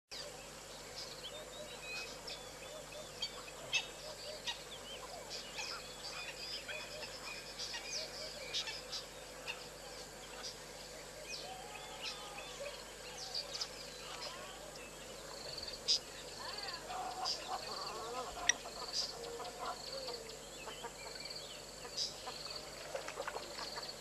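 A chorus of many wild birds calling over one another: dense short chirps, trills and whistles, with a few sharp single notes standing out. About halfway through, one bird starts a run of evenly repeated short notes. A faint steady tone hums underneath.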